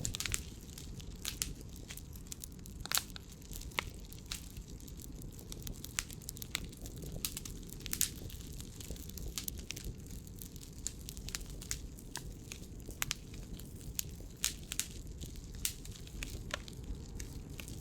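Burning firewood crackling, with irregular sharp pops several times a second over a low steady rumble.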